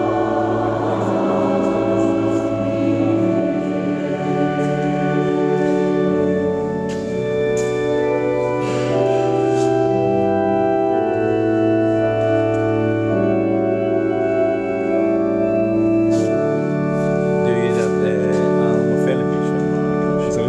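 Church organ playing slow, sustained chords that change every second or two, with choir voices blending in briefly at the start.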